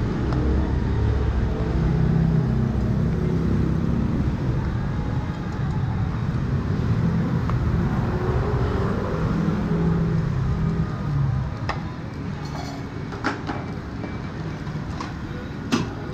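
Low rumble of street traffic that eases off about two-thirds of the way through. After it come a few sharp metallic clicks of steel tongs tapping on the egg-waffle mold, the loudest near the end.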